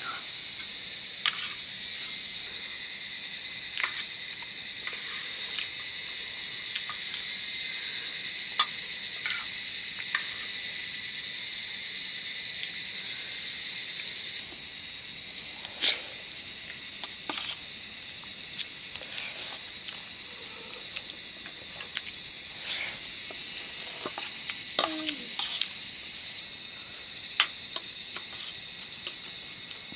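A steady shrill chorus of crickets, with many scattered short clicks and smacks of people eating rice: chewing and mouth noises.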